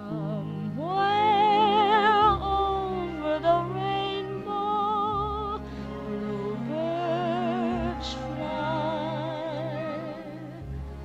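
Slow, lyrical music in an operatic style: a high melody line sung or played in long held notes with strong vibrato, over a steady low accompaniment.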